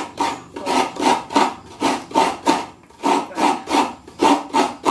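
A half coconut scraped hard against the serrated blade of a kayuran (coconut grater stool), grating out the white meat in quick rhythmic rasping strokes, about two to three a second, with a couple of brief pauses.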